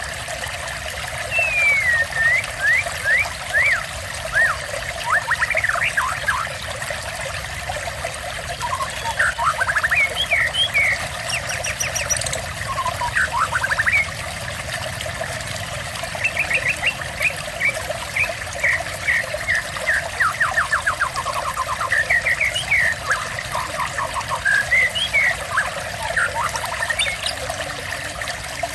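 Water trickling steadily, with a songbird singing over it in repeated bursts of quick whistled notes and trills.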